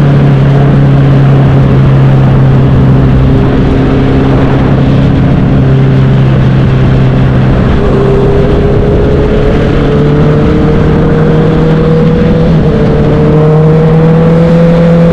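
Honda CB650F's inline-four engine and exhaust running loud and steady, the pitch creeping slowly upward over the second half.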